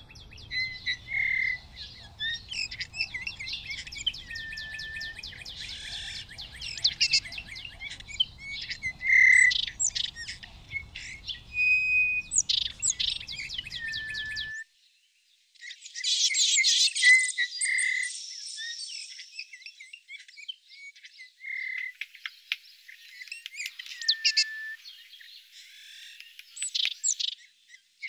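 Small songbirds calling and singing: busy high chirps and trills, with soft whistled notes near the low end of their range recurring every few seconds. About halfway through the sound drops out for a moment, and a faint low rumble under the birds stops there.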